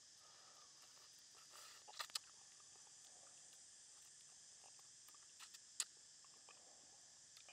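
Crispy fried salmon bone being bitten and chewed: a couple of sharp crunches about two seconds in, a few soft ticks, and another crunch near six seconds, over a steady faint high hiss.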